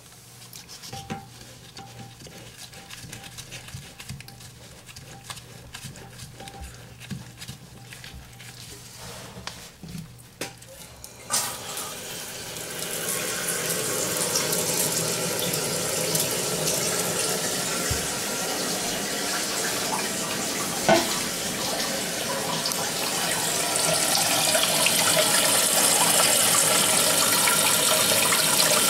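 Faint clicks and scrapes of hand work at the toilet's base, then about eleven seconds in a sudden, steady rush of water as the supply is opened and the new toilet's tank fills through its fill valve, growing louder and hissier near the end.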